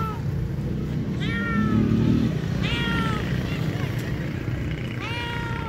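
Hungry stray cat meowing for food three times, each meow drawn out and falling in pitch, over a steady low rumble.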